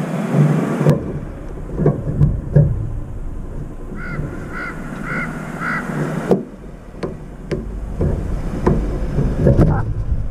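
A crow caws four times in a quick, even series, each call short and clear. Scattered sharp taps follow while its bill is at the plastic water cup, over a steady low rumble.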